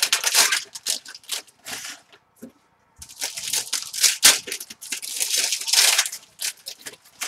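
Trading card pack wrappers being torn open and crinkled by hand, in two spells of rustling with a short pause between.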